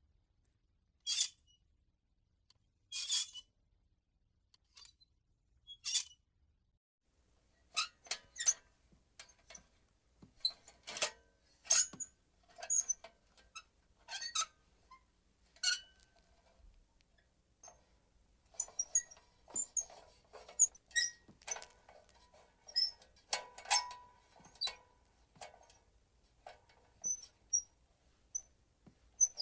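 Metal joints of a swinging lantern creaking and squeaking as it sways in the wind: short high squeaks. They come a couple of seconds apart at first, then faster and more irregularly from about eight seconds in, some lower and drawn out.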